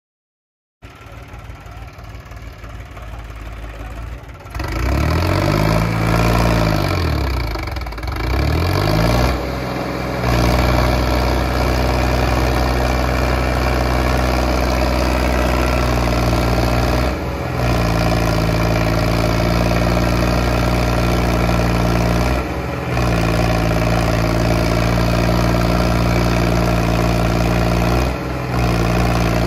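Diesel engines of a Sonalika DI 35 and a New Holland 3630 tractor, chained together for a tug of war. The note starts faint, revs up and down a few times, then holds at high, steady throttle as the tractors pull against each other, dipping briefly three times.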